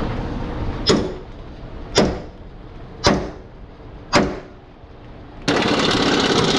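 Sledgehammer striking a handled steel chisel held against a steel truck chassis rail: four ringing metal-on-metal blows, about one a second. Near the end a loud steady rattling noise starts suddenly.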